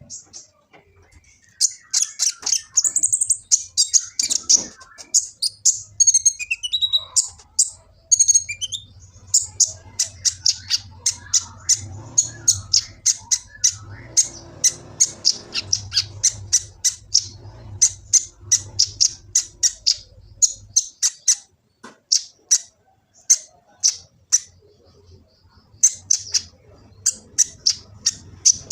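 Kolibri ninja sunbird singing a fast, varied run of short, sharp, high-pitched chirps with a few quick sliding notes, stopping briefly a few times. A faint steady low hum runs underneath for much of it.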